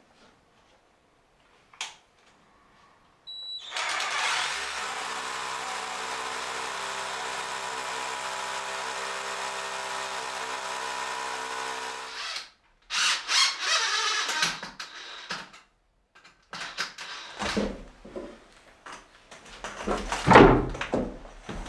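Electric drill boring into a stone wall, running at one steady pitch for about nine seconds and then stopping. After it come bursts of rustling and scraping and a few sharp knocks.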